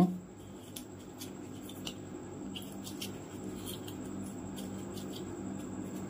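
Scattered light clicks and taps from hands handling small objects, over a steady low hum.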